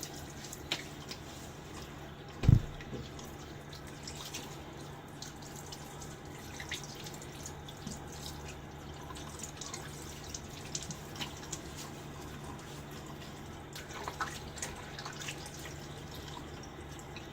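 Water dripping and trickling in a bathroom sink, with a steady low hum, scattered small clicks and one dull thump about two and a half seconds in.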